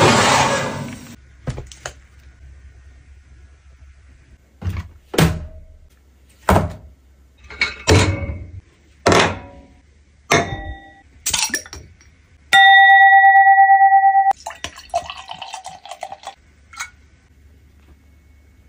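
Kitchen handling sounds: a rush of noise as the oven tray comes out, then a run of separate sharp knocks and clinks of dishes and glassware. About two-thirds through, a loud steady electronic tone sounds for under two seconds, followed by a short rush of noise like pouring.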